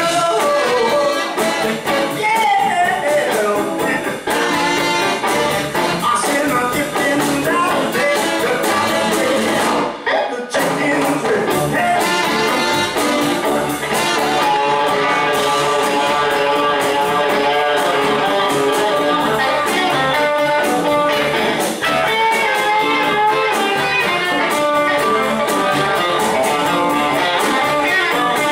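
A live band playing: electric guitar, upright bass, drums, keyboard and two saxophones, with a short stop in the music about ten seconds in.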